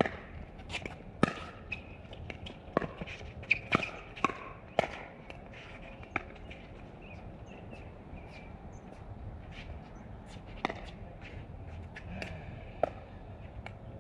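Pickleball rally: sharp pocks of paddles hitting the hollow plastic ball, coming about once a second for the first five seconds, then two more single pocks near the end.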